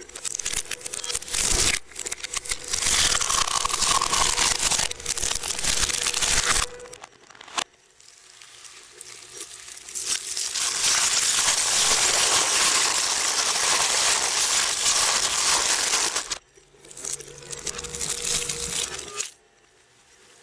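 Shredder blades crushing and tearing material, a dense crackling in three stretches with short pauses between them, stopping about a second before the end.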